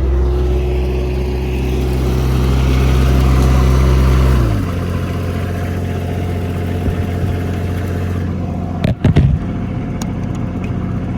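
An engine running at a steady raised speed, then dropping back to a lower steady speed about four and a half seconds in. A couple of sharp knocks about nine seconds in.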